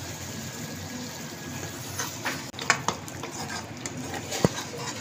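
A spoon stirring chicken pieces in a creamy gravy in a metal karahi, scraping and clicking against the pan several times, with one sharp knock on the pan near the end. A steady low sizzle of the gravy cooking on low heat runs underneath.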